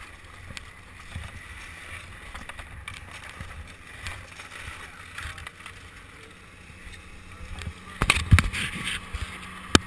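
Ski boots crunching over packed snow as people walk, with wind rumbling on the microphone. A cluster of loud knocks comes about eight seconds in, and one more sharp knock just before the end.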